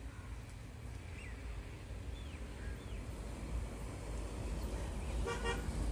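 Outdoor ambience: a steady low rumble with a few short bird chirps in the first half, and a brief buzzy, horn-like toot about five seconds in.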